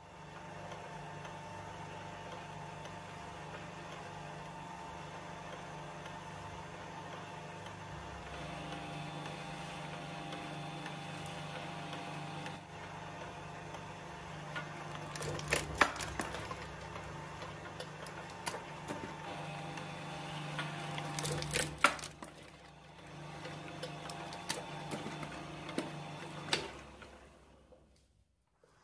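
Small twin-shaft shredder running with a steady mechanical hum while its steel cutting discs chew a stretchy rubber toy figure. Sharp loud cracks and snaps come about halfway through and again about two-thirds of the way in. The machine stops shortly before the end.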